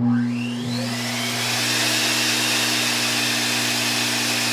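Apollo Precision-5 Pro five-stage HVLP turbine motor starting abruptly and spinning up, its whine rising in pitch over the first second or so, then running steadily with a loud rush of air as the pressure is set to about 4 PSI.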